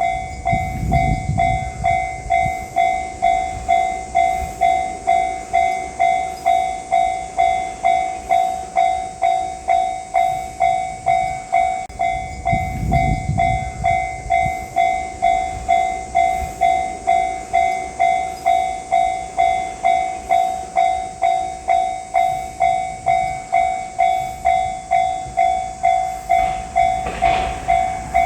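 Japanese railway level-crossing warning bell ringing steadily, a ringing ding repeating about three times every two seconds, signalling an approaching train. Low rumbles pass underneath twice, and a broader noise builds near the end.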